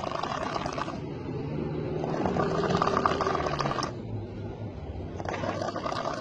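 A person snoring heavily, with rasping, motor-like snores about every three seconds, each lasting a second or two: one ends about a second in, the next runs through the middle and a third starts near the end.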